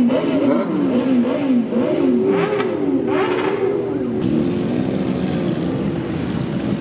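Several motorcycle engines running at low speed in a slow-moving pack, their pitches wavering up and down with the throttle. About two to three seconds in, bikes rev up in quick rising blips.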